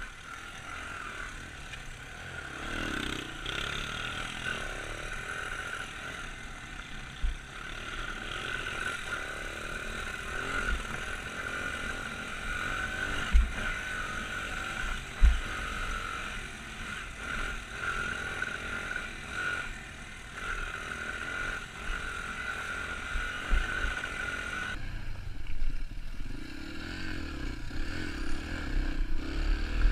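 Pit bike engine running as the bike is ridden over a leaf-covered forest trail, with a few sharp knocks and clatter from bumps. Near the end the sound changes to a lower, steadier engine note.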